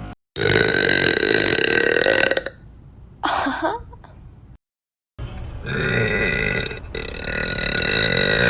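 A woman's long, drawn-out belches, slowed down. The first lasts about two seconds and a short one with a falling pitch follows. After a brief cut to silence, a second long belch runs from about halfway through.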